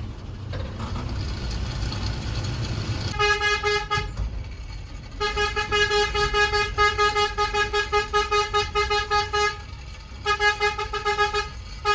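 A vehicle horn sounding in rapid pulses of one steady tone, about four or five toots a second, in three runs: a short run about three seconds in, a long run, then another short run. A low engine rumble comes before it.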